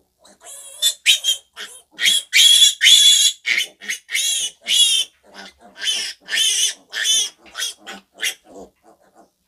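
Piglet squealing in a rapid series of loud, shrill screams while held for an intramuscular injection in the neck, the cries fading out near the end.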